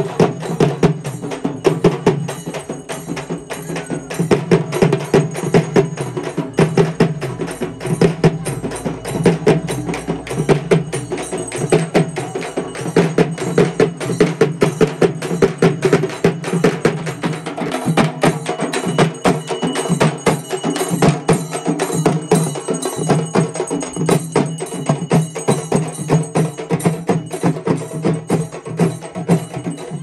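Tapou, large frame drums beaten with sticks by a group of drummers, playing a fast, dense, unbroken rhythm.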